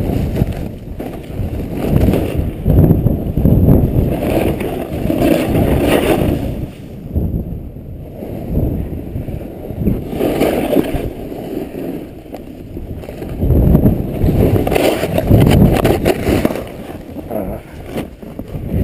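A snowboard sliding through deep powder, with wind rushing over the microphone. The sound swells and fades in surges every few seconds, with a higher hiss on some turns.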